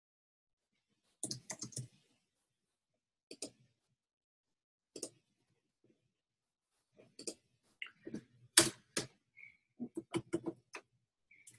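Computer keyboard typing and clicking in short scattered runs with silent gaps between them, sparse at first and busier in the second half.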